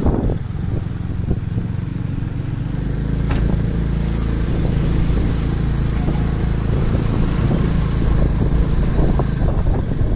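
Engine of a moving road vehicle running steadily, a low rumble with road and wind noise on the microphone. A single sharp click about three seconds in.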